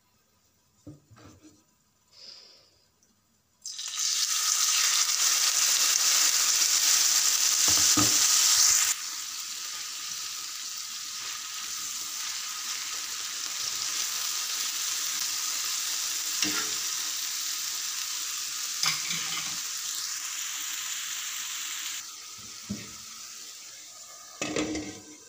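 Raw chicken pieces hitting hot oil in a pan, sizzling loudly at once about four seconds in, then frying steadily and less loudly. A spatula scrapes and knocks against the pan a few times while stirring.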